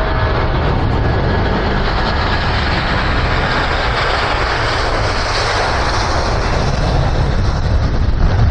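Jet airliner passing low over the airport approach, a loud steady roar with deep rumble that grows brightest about five to six seconds in and then eases off.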